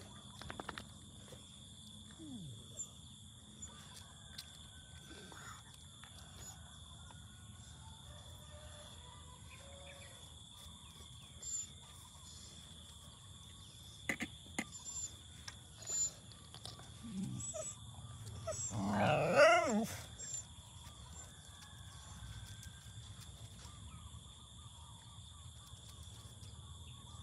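A dog giving one drawn-out call about two-thirds of the way through, its pitch wavering up and down, among scattered small clicks and taps.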